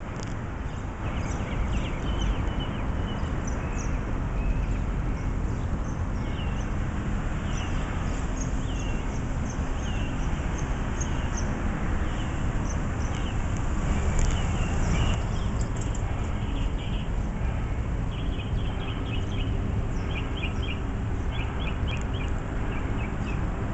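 Small birds chirping again and again over a steady low rumble, with quick runs of chirps in the last few seconds.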